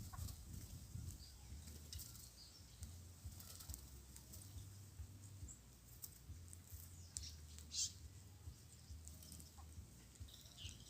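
Small birds chirping faintly in scattered short calls, with light flutters and ticks; the clearest burst of chirping comes about two thirds of the way through.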